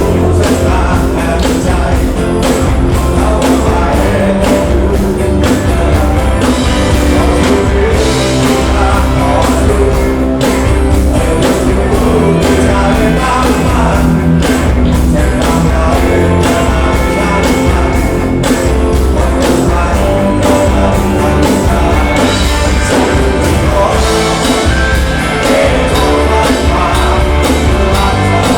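A band playing rock-style music with a singer, loud and steady with a driving beat.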